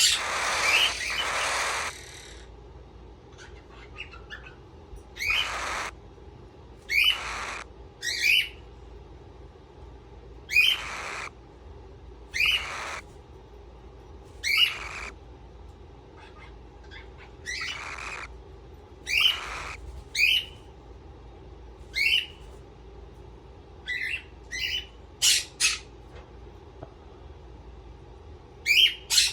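Pet parrot giving short, loud, harsh squawks, one every second or two, with a longer call at the start and quicker runs of calls near the end.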